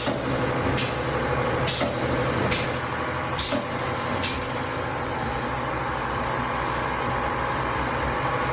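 Pneumatic spot welding machine cycling: a sharp click about once a second, six times over the first four seconds, over a steady hiss and low hum that carries on after the clicks stop.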